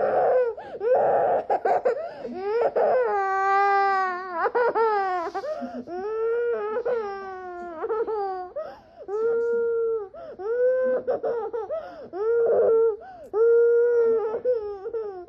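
Small child crying: long, pitched cries one after another, each rising and then falling away, with short breaks for breath between them.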